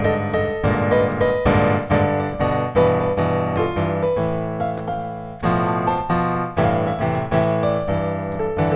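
Background piano music: a slow run of struck notes, each ringing and fading, with a pause and a softer stretch about five seconds in before the notes pick up again.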